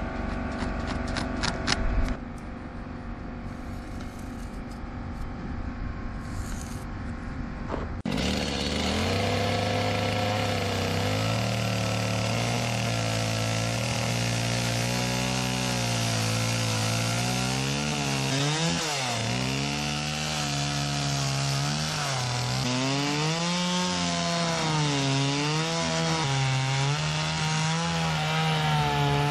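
Two-stroke Stihl chainsaw cutting through a thick wooden 8x12 beam. It starts suddenly about eight seconds in, after a quieter stretch. The engine note dips and recovers again and again as the chain bogs under load in the wood.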